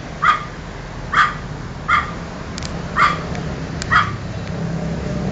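Miniature pinscher barking: five sharp barks about a second apart.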